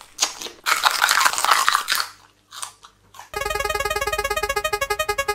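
Loud crunchy biting and chewing on a red pepper-shaped candy. About three seconds in, a spinning-wheel sound effect starts: a fast run of short ticking tones that begins to slow near the end.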